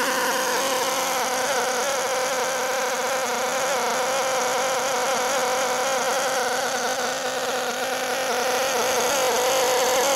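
Novarossi Kangaroo 7-transfer-port nitro engine in a 1/8-scale on-road RC car, running at a steady speed with a slightly wavering pitch during its first litre of break-in fuel.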